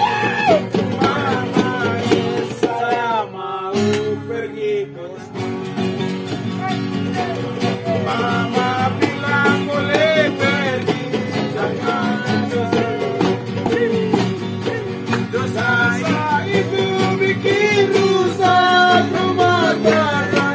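Acoustic guitars and a small ukulele-like guitar strummed together in a steady rhythm while men sing a song over them.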